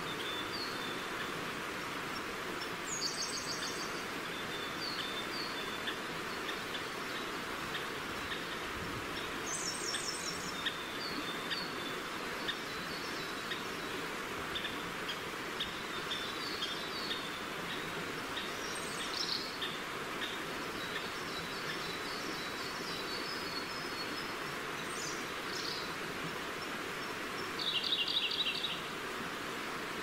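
River water rushing steadily, with forest birds singing over it: many short high chirps throughout and a few quick trilled phrases, the loudest near the end.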